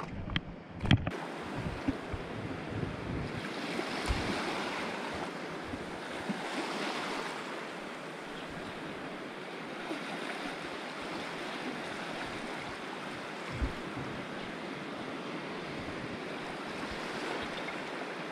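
Surf breaking and washing over the edge of a coral reef, a steady rush of water that swells louder twice, about four and seven seconds in, with wind buffeting the microphone. A few sharp clicks in the first second and a single thump later on.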